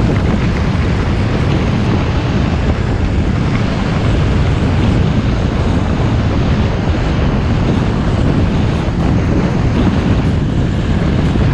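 Steady, loud wind rush over the microphone, a low, even roar with no engine tone in it.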